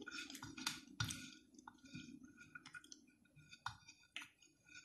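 Faint, irregular clicks and light scrapes of a small piece of bread being pushed around a ceramic plate by hand to mop up the sauce.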